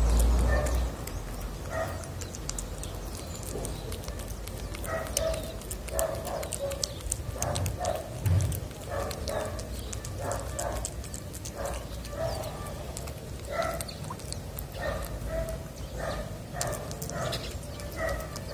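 Tabby cat eating wet cat food close to the microphone: a steady run of wet chewing and smacking clicks, several a second. There is a low rumble in the first second.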